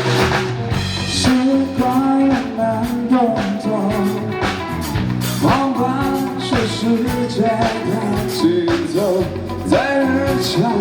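Live rock band playing, a singer's voice carrying the melody over electric band backing with a steady drum beat.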